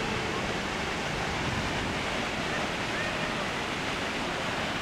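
Waterfall close up: a steady, unbroken rush of falling water.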